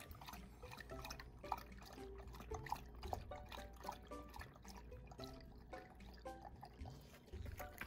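Labrador retriever lapping water from a pet water bowl: a run of wet slurps and drips, over light plucked-string background music.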